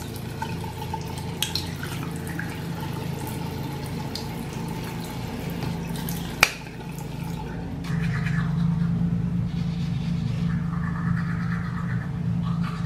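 Lawn mower engine running steadily, a low drone that gets louder about eight seconds in, with one sharp click a little after six seconds.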